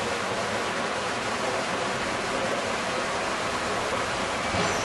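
Steady rushing noise with nothing else standing out, and a faint bump near the end.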